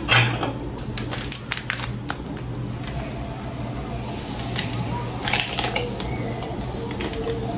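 Light clicks and taps of kitchen utensils and containers being handled at the counter while ingredients go into a blender. They come as a quick run in the first two seconds or so and a few more about five seconds in, over a steady low hum.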